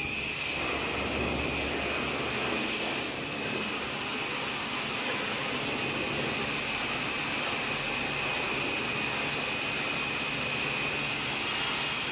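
Steady machine noise with a constant high-pitched whine running through it.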